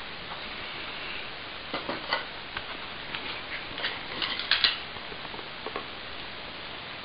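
Hard plastic bottles on the rod of a wooden dog puzzle toy clacking and rattling as a small dog noses and turns them: irregular clicks and knocks, the loudest cluster a little past the middle.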